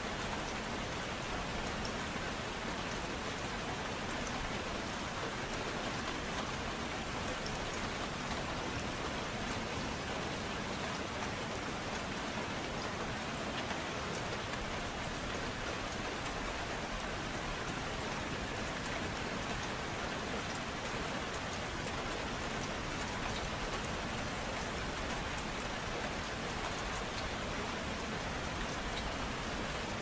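Gentle, steady rain falling: an even hiss with a faint patter of individual drops.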